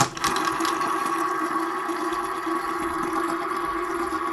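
Metal fidget spinners spinning on a tabletop, their bearings giving a steady whirring hum with a clear, unchanging pitch. A short click right at the start as one is flicked.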